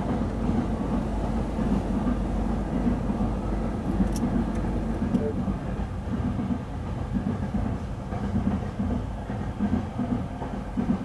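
Intermodal container freight wagons rolling past on the rails: a steady rumble with repeating wheel beats, and one sharp click about four seconds in. It grows a little quieter in the second half.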